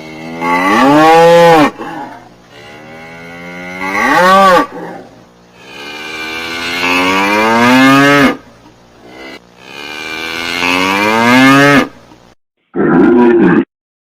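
Cow mooing: four long moos in a row, each swelling in loudness and bending up and then down in pitch, then a shorter call near the end.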